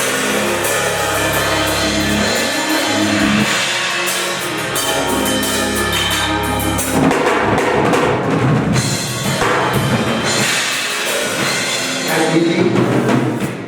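Church band playing a song, with a drum kit to the fore: bass drum and snare keeping the beat under the other instruments.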